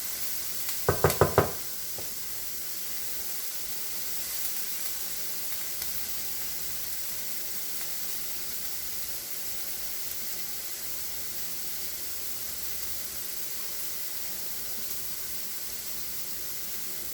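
Pea-protein taco filling sizzling steadily in a hot pan, with four quick knocks that ring with a tone about a second in.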